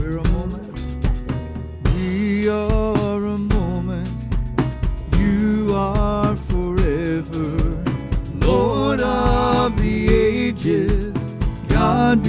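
Live worship band playing a gospel song with drums and sung vocals, the singing coming in about two seconds in.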